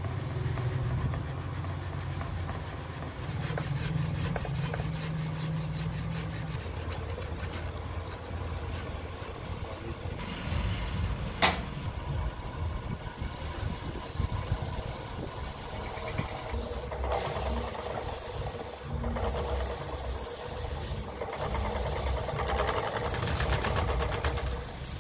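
Sandpaper rasping over a carved wooden clock face in quick rhythmic strokes, over a steady low motor hum. About halfway through there is a single sharp knock. In the second half the wooden face spins on a motor-driven spindle with sandpaper held against it, giving a denser, continuous rasp.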